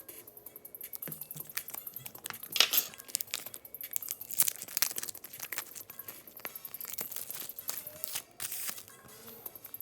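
Plastic wrapping being torn and crumpled off a product box, with scattered clicks and taps of packaging being handled and several louder rustling bursts.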